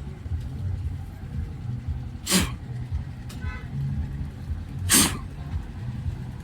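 Two short, sharp puffs of breath, about two and a half seconds apart, blown close to the microphone, over a steady low rumble.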